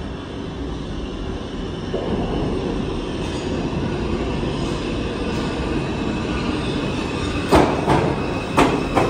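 New York City Subway 4 train pulling into the station, its rumble growing louder as it approaches. A faint high squeal from the wheels starts near the end, and there are two loud clanks about a second apart.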